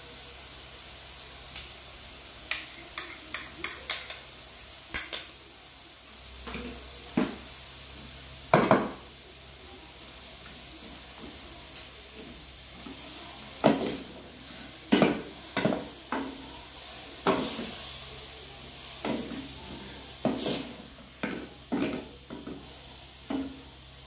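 Wooden spoon stirring and scraping boneless mutton pieces and garlic-ginger paste around a metal karahi, over a steady faint sizzle of the meat frying. A quick run of sharp taps comes a few seconds in, and the scraping strokes come thick and uneven through the second half.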